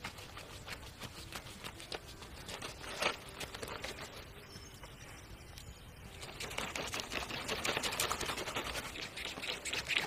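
Knife slicing through a crocodile's belly hide, a dense run of crisp crackling and scraping clicks that grows busier and louder about two-thirds of the way in.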